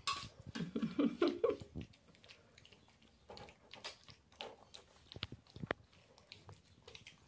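Two weaned puppies eating soft, pasty dog food from a plastic bowl: a string of short wet smacks, chews and clicks as they gulp and nose at the bowl. A short pitched vocal sound comes in the first two seconds.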